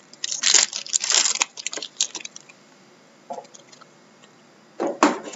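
Crinkling and rustling of trading card packs and cards being handled, in several quick bursts over the first two seconds, then a quiet stretch and another short burst near the end.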